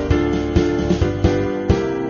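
Instrumental background music with held chords and a steady beat of about two beats a second.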